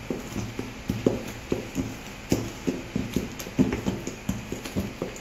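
Wooden spatula knocking against a mixing bowl as thick cake batter is stirred by hand, in a steady run of dull knocks about three a second.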